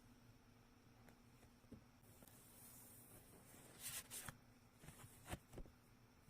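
Faint handling of gift packaging during unboxing: a couple of brief crinkles about four seconds in, then a few sharp clicks just after five seconds.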